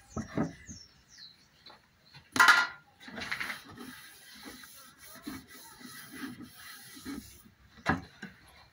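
Wooden rifle stock handled on a wooden workbench: rubbing and light knocks, a brief scrape about two and a half seconds in, and a sharp knock near the end as the stock is laid down.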